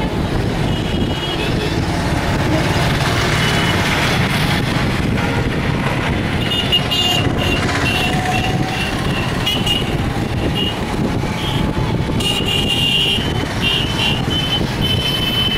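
Steady rumble of road vehicles, with short, high-pitched beeps repeating through the second half.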